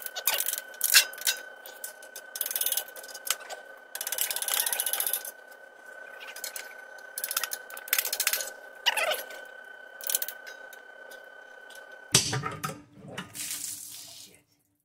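A hammer tapping a plastic pry tool wedged into the gasket seal of a Subaru 5EAT automatic transmission pan: a long run of sharp taps and clicks with some scraping against the metal pan. About twelve seconds in, the pan breaks free all at once and transmission fluid gushes out and splashes.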